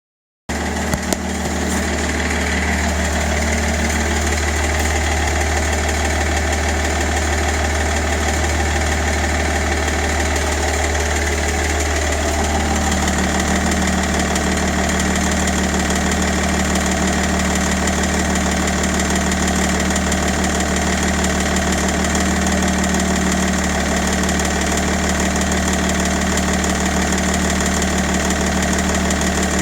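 BMW 530d E60's M57N straight-six diesel engine idling steadily, with the knocking noise that the owner is trying to cure. Its tone shifts a little about twelve seconds in.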